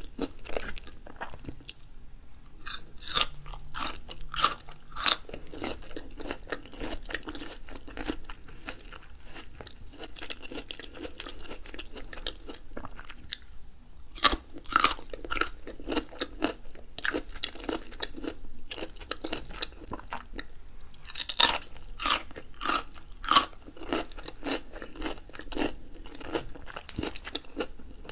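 Close-miked crunching and chewing of raw daikon radish and carrot sticks. Several bursts of loud, crisp bites come through, with softer wet chewing between them.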